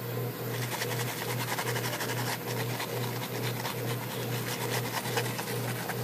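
Hand wire brush scrubbing the metal type slugs of a Royal 10 typewriter, a rapid, even scratching that starts about half a second in, over a low hum that pulses about twice a second.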